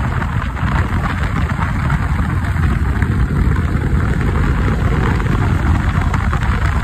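Yamaha R15 single-cylinder sport motorcycle running at speed, its engine note buried in heavy, steady wind rush.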